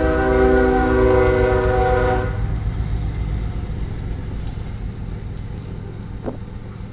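Diesel locomotive air horn sounding a steady chord from the lead GE ES40DC, cutting off a little over two seconds in. Then the low rumble of the locomotives and freight cars rolling past, slowly fading.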